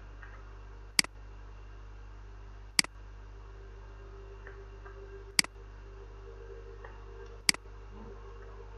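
Four sharp computer mouse clicks, spaced about two seconds apart, placing points with a drawing program's pen tool. A steady electrical hum runs underneath.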